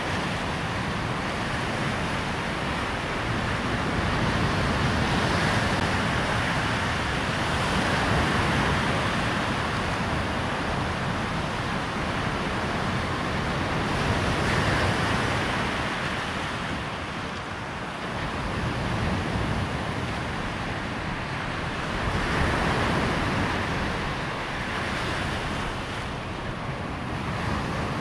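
Waves breaking on a sandy shore, a steady rush of surf that swells and ebbs every few seconds as each wave comes in.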